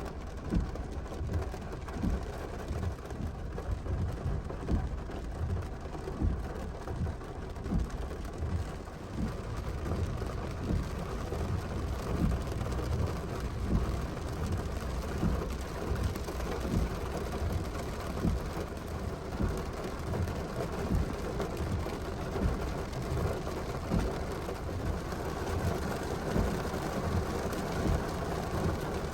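Steady rain during a thunderstorm, with drops hitting a nearby surface as many small low thuds throughout.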